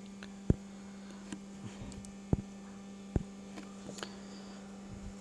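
Steady low electrical mains hum, broken by a few sharp clicks about a second or two apart.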